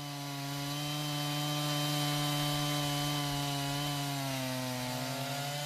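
Chainsaw engine running steadily at high revs in a PortaMill chainsaw sawmill, ripping boards from a log. Its pitch sags slightly near the end as the saw takes more load.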